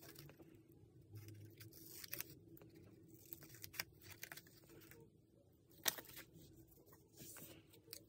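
Small scissors snipping through painted paper, with paper rustling between the cuts. The sound is faint, with a handful of separate snips; the loudest comes about six seconds in.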